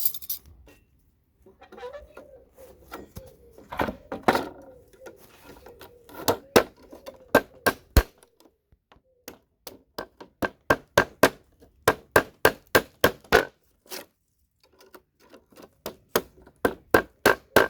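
Hammer striking a chisel to knock CPU sockets off motherboards: runs of sharp knocks, about three a second, with a short pause near the end.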